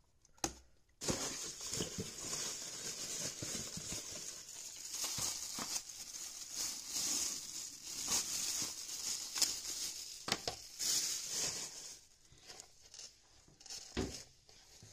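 Thin plastic shopping bag rustling and crinkling as it is handled, then a couple of soft knocks as a cardboard box is set down on the tabletop near the end.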